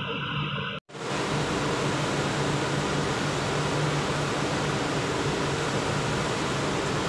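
Steady hum and broad hiss from a tanker ship's running machinery and ventilation. The sound cuts out for an instant just under a second in and comes back with more hiss.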